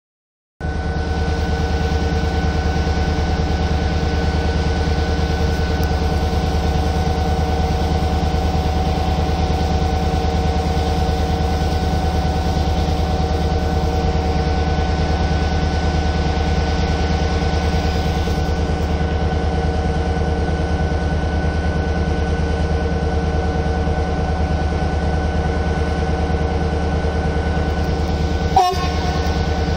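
EMD G26C diesel-electric locomotive's engine running steadily while the train stands: a low hum with a few held tones over it. A single short knock near the end.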